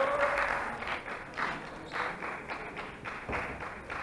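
Scattered short claps and taps, a few a second and unevenly spaced, echoing in a large sports hall.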